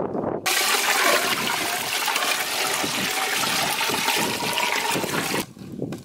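Water poured from a plastic bucket into a large metal cooking pot already holding liquid, a steady splashing gush. It starts suddenly about half a second in and stops abruptly near the end.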